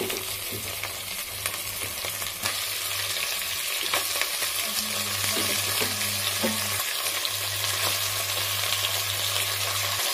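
Pressure-cooked mutton pieces frying with sliced shallots in oil in a clay pot, sizzling steadily while a wooden spatula stirs them, with a few light scrapes. A steady low hum runs underneath.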